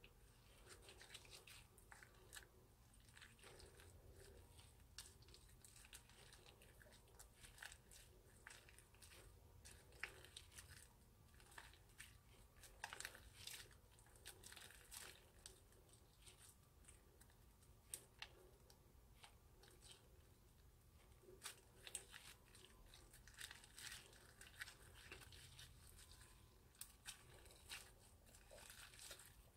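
Slime squished and kneaded by hand: faint, irregular sticky crackles and small pops.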